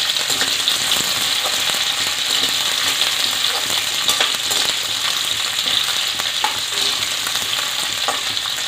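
Chunks of onion and green capsicum sizzling steadily in hot oil in a steel kadai, stirred with a spoon that clicks and scrapes against the pan now and then.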